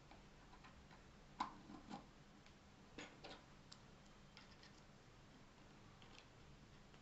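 A few small, sharp clicks and taps of 3D-printed plastic clock parts being handled and fitted together, the loudest about a second and a half in, over near-silent room tone.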